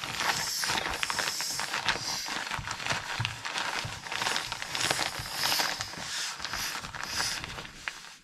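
Air hissing out of a Klymit V Seat inflatable seat cushion as it is deflated, with crinkling and rustling of its cloth-covered vinyl as it is handled.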